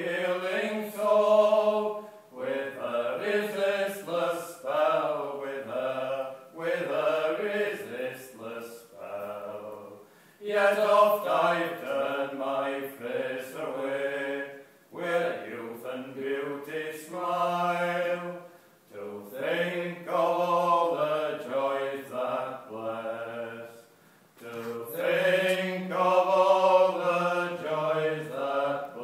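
Two men singing an old English song unaccompanied, in long held phrases with short pauses for breath between them.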